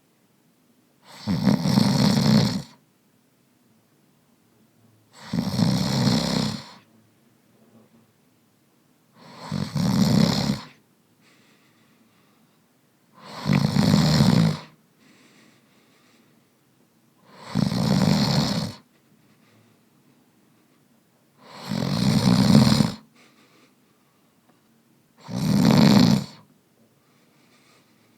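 A man snoring: seven snores about four seconds apart, each about a second and a half long, with faint breathing between them.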